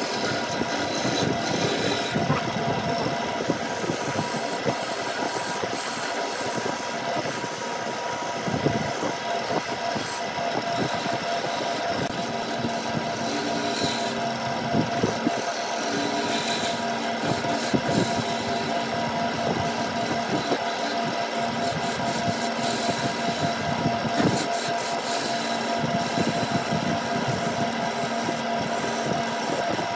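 Wood lathe running with a steady motor hum while a hand-held gouge cuts the spinning wood: a continuous rasping, scraping noise with irregular catches as shavings come off.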